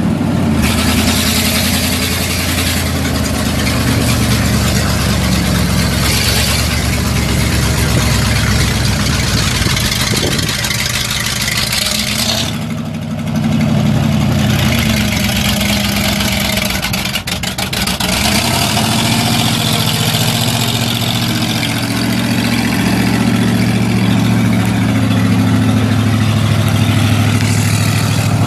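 1979 Ford 800 dump truck's eight-cylinder gasoline engine running, first at idle and then driving, its note rising and falling as the engine speed changes.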